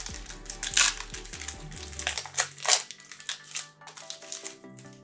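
Crinkling and rustling of a trading-card pack's foil wrapper being torn open and the cards handled, in irregular bursts, over background music.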